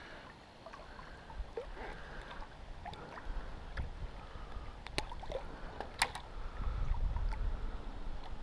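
Quiet lakeshore ambience: water against the rock and a low wind rumble on the microphone that grows stronger partway through, with two sharp clicks about a second apart, about five seconds in.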